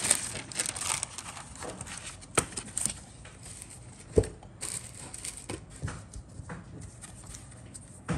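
Paper and plastic packaging rustling and crinkling as a model kit's decal sheet and a bagged photo-etch fret are handled on a cutting mat. A few sharp taps and knocks come through, the loudest about four seconds in.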